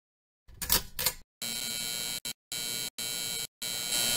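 Neon-sign buzz sound effect flickering on: a couple of short crackling bursts, then a steady electric buzz that cuts out and back in several times before holding on.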